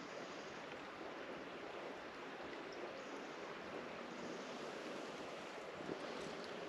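Shallow mountain creek flowing: a steady, even rush of water.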